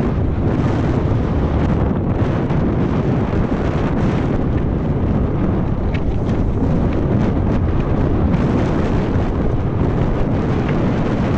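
Wind buffeting the handlebar camera's microphone on a fast mountain-bike descent, mixed with the steady rumble of the tyres over dry dirt and stones and scattered small rattles of the bike.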